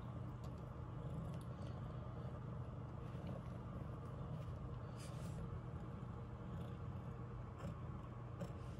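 Ragdoll mother cat purring steadily while nursing her newborn kittens, a low continuous rumble with a few faint clicks over it.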